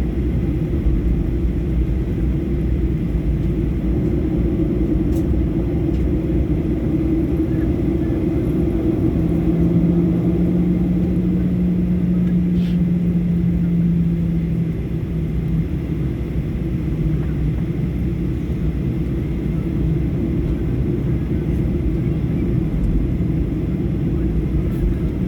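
Boeing 737 jet engines running with a steady low rumble. A steady hum rises out of it about nine seconds in and fades out about six seconds later.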